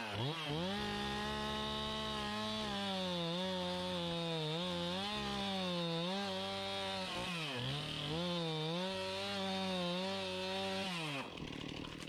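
Two-stroke chainsaw running at full throttle while cutting into a tree trunk. Its pitch sags repeatedly as the chain bogs under load, and it drops away suddenly near the end as the throttle is released.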